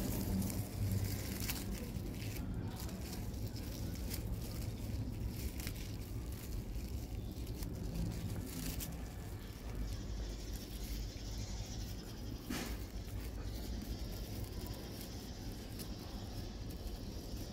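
Light rustling and soft taps of lemongrass leaves being folded and laid on a plate in a woven bamboo tray, with a sharper tap about twelve seconds in. Under it runs a low steady hum, and a faint high hiss joins about ten seconds in.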